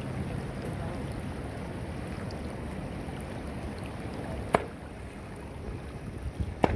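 Steady rush of a shallow river, with one sharp sledgehammer blow on a river boulder about four and a half seconds in and a few more knocks near the end. These are hammer-fishing blows, struck on the rock to stun fish sheltering beneath it.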